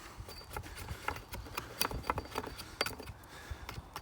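Origin Knives Bushcrafter axe making quick, light carving cuts into wood, a run of short sharp chips and knocks at an uneven pace of about three to four a second.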